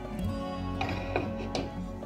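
Background instrumental music with a few plucked notes.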